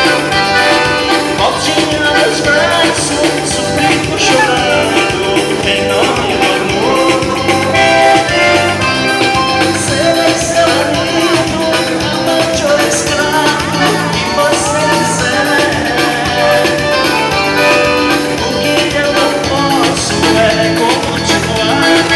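A dance band playing upbeat music with a lead singer, over a steady, repeating bass beat.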